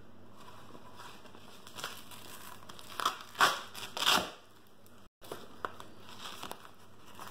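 Nylon blood pressure cuff being wrapped and fastened around the upper arm: fabric rustling and Velcro ripping in a few short bursts, loudest between three and four and a half seconds in.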